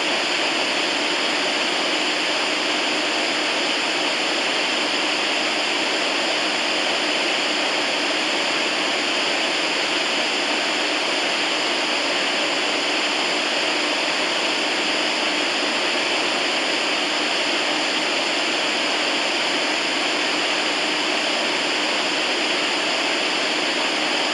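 FM radio static: steady, even hiss of an FM receiver tuned to no station, with a faint underlying hum.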